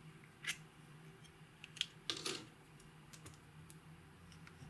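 Clear slime being worked by hand as makeup is mixed in, giving a few sharp clicks and crackles: one about half a second in, a quick cluster around two seconds in, then a few light ticks.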